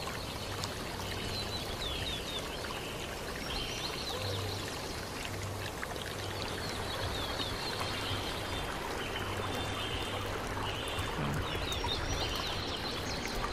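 Steady rushing outdoor noise, with a bird giving short runs of quick high chirps every two to three seconds.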